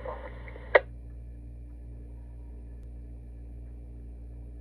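Police radio scanner between transmissions: one sharp squelch click a little under a second in, then the steady low hum and hiss of the open channel.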